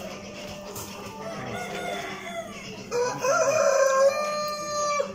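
A rooster crowing: one long crow that starts about three seconds in and lasts about two seconds, over a background of other chickens clucking.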